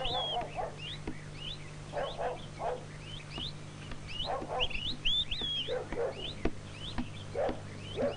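Small birds chirping over and over in quick upward notes, with a dog barking now and then in short bursts.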